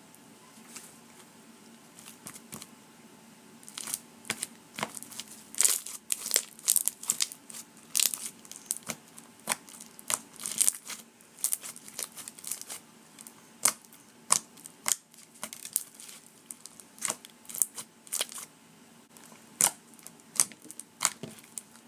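Hands squeezing and stretching thick clear fishbowl slime packed with plastic beads: a string of sharp crackles, clicks and pops, sparse at first and coming thick from about four seconds in.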